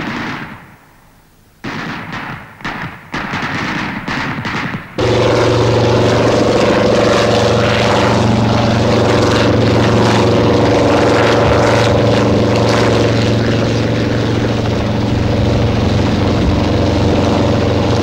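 Gunshots and short bursts of small-arms fire for the first few seconds. From about five seconds in, a helicopter's engine and rotor run with a steady, loud sound.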